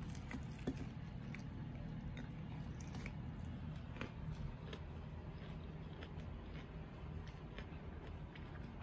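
Faint chewing of a mouthful of beef and cheese taco: small irregular mouth clicks and squishes over a steady low hum.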